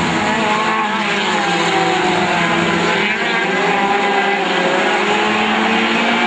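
A small pack of VW Gol touring race cars running at speed through a bend, several engine notes overlapping and rising and falling slightly as the drivers ease off and pick up throttle.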